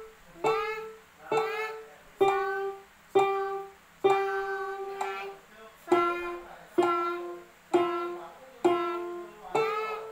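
Casio light-up-key electronic keyboard playing a slow single-note melody, about one note a second with sharp starts and short decays, one note held longer midway. A child's voice sings the note names along with the keys.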